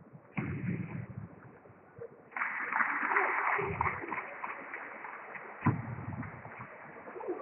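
Sounds of a table tennis match in a hall: ball strikes and players' shoes on the wooden floor, with a sharp knock about two-thirds of the way through. The recording is dull and muffled.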